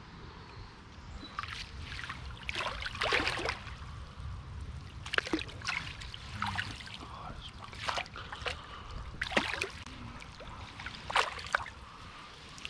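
Water sloshing and splashing in a series of short, uneven bursts as a landing net is worked in shallow canal water to release a pike.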